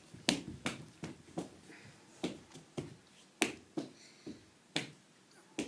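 A series of sharp, separate clicks, about two a second and slightly uneven, with quiet between them.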